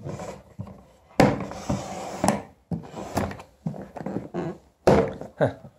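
Hard plastic hood and base of a covered cat litter box being unclipped, opened and shifted on a wooden table: a series of knocks, thuds and scraping rubs.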